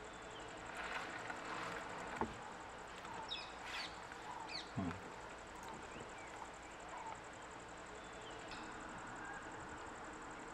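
Outdoor ambience: scattered short bird chirps over a steady high insect buzz, with a couple of soft thuds about two and five seconds in.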